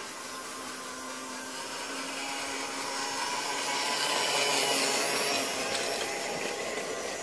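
Faller PlayTrain toy train running on plastic track: a steady motor whir that grows louder as the locomotive passes close by, loudest about four to five seconds in, then fades as it moves away.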